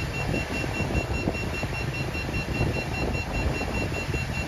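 Boat's engine running underway with wind buffeting the microphone, over a high-pitched electronic beeping that repeats rapidly and stops at the end.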